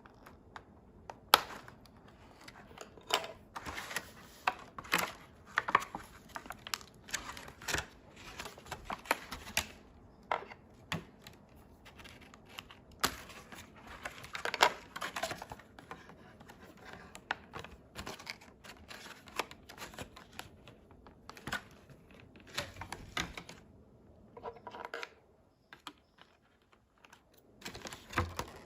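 Doll packaging being handled and opened by hand: irregular sharp clicks, taps and short rustles, with a brief lull near the end.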